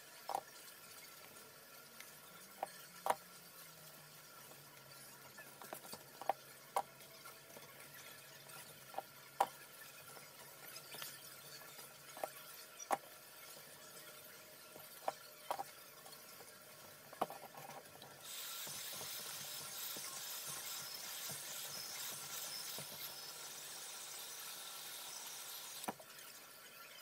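Craft-foam flower petals and a hot glue gun being handled: scattered light clicks and taps every second or few, then a steady hiss for the last third.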